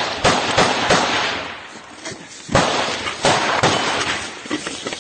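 Irregular close gunfire: a series of sharp cracks with short echoing tails, several in the first second, a brief lull, then more from about halfway on.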